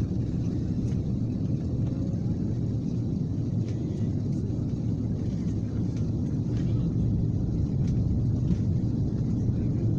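Steady low rumble of engine and airflow noise inside the cabin of an Airbus A330-200 airliner on approach to landing.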